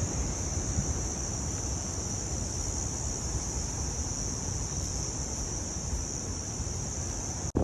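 Steady, high-pitched chorus of insects, a continuous shrill drone, over a low rumble of wind on the microphone.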